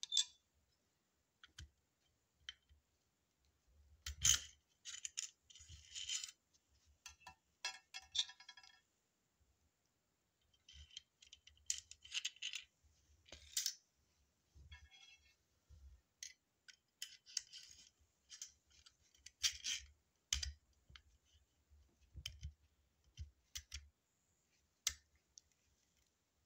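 Intermittent metallic clicks, rattles and scrapes of a light-duty staple gun being loaded by hand: the pusher rod is taken out, a strip of staples goes into the magazine, and the rod is pushed back in and locked.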